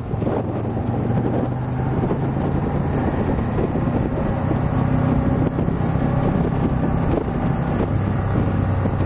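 A road vehicle's engine running steadily at cruising speed, with wind rushing over the microphone. The engine hum sinks slightly near the end.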